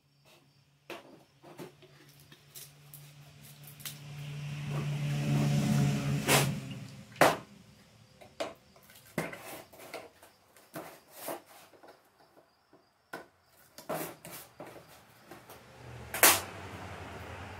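Irregular clicks, taps and clinks of a small metal measuring cup and paint cans being handled on a workbench, with two louder clacks, one after about seven seconds and one near the end. A swelling rush of noise with a low hum builds and cuts off about six seconds in.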